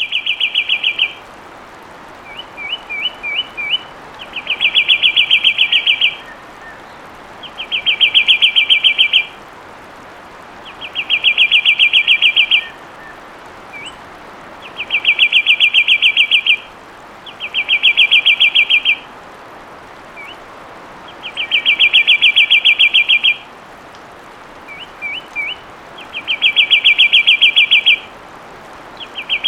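Fulvous wren singing: a fast trill of rapid, even notes lasting a second or so, repeated about every three seconds, a few of the trills led in by a short run of quick separate notes. A steady hiss lies underneath.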